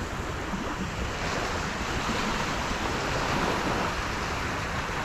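Small waves washing and breaking over a shallow sandy shoreline, with wind rumbling on the microphone.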